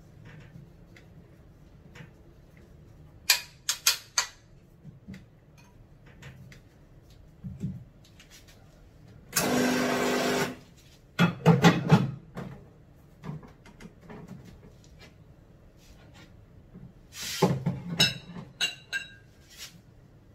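Espresso-making sounds at a Nuovo Simonelli Oscar. A few sharp taps and knocks come first. About nine seconds in, the machine's vibratory pump runs for about a second and a half while water flushes through the group head. Metal clatter follows, then ceramic cups clink with a ringing tone near the end.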